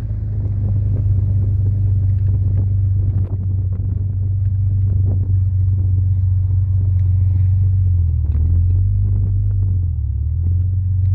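A 1938 SS Jaguar 3½ Litre's straight-six engine runs with a steady low hum. Its pitch dips briefly twice in the latter part.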